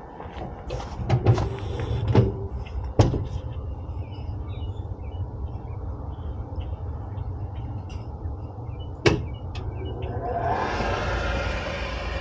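A steady low hum with a few knocks and clicks, one sharp knock about nine seconds in. Near the end a gas furnace's draft inducer motor spins up, its whine rising in pitch over a growing rush of air.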